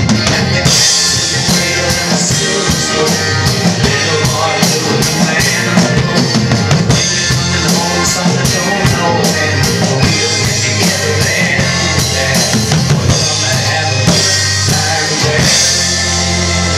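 Drum kit with many cymbals played along to a backing song recording: steady drum hits and cymbal crashes over sustained bass notes. Near the end the hits thin out while the backing notes hold.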